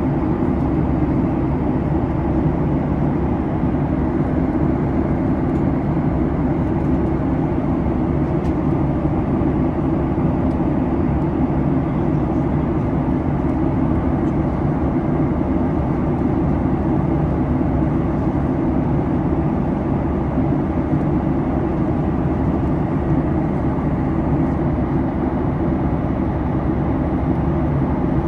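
Steady drone of a Boeing 737 MAX's engines and airflow heard inside the passenger cabin in flight, loud and even throughout.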